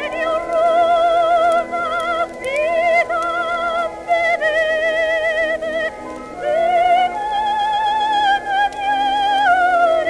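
Old 1920s-era music recording: a slow melody of long held notes with a wide, regular vibrato and no words, shifting pitch every second or two.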